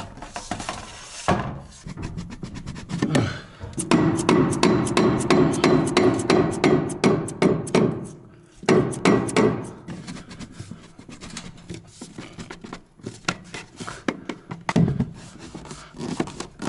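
Hammer tapping on a 4-inch PVC drain-waste-vent pipe to drive it into place: a fast run of blows, about five a second, for several seconds, then slower scattered taps.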